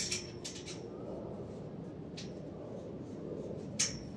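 Sharp metallic taps and clinks on a galvanized steel greenhouse pipe frame as fittings are worked onto the arch hoops: a quick cluster in the first second, a single tap a little after two seconds, and a louder tap with a brief ring near the end, over a steady low background noise.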